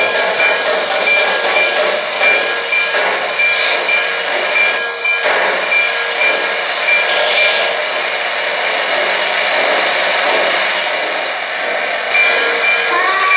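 O-scale model New York Central 4-8-2 Mohawk steam locomotive running on three-rail track, its onboard sound system giving a steady mix of steam-engine and rail sounds with several held tones and a regular light pulse.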